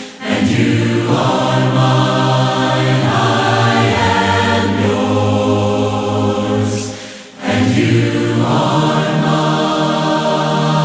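Congregation singing a hymn a cappella, with long held notes and short breaths between phrases, one just after the start and another a little past seven seconds in.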